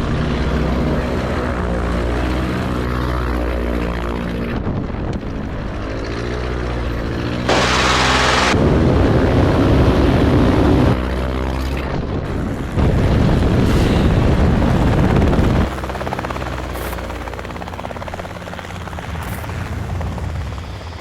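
Light propeller plane's engine running, its pitch bending up and down as it passes. Two stretches of louder rushing noise come in about eight and thirteen seconds in.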